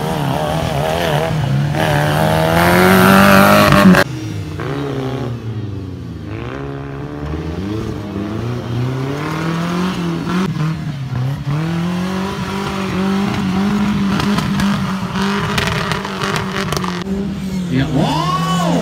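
Engines of off-road 4x4 race cars revving hard, pitch rising and falling again and again as they accelerate and lift off. The loudest climb, about three to four seconds in, cuts off suddenly.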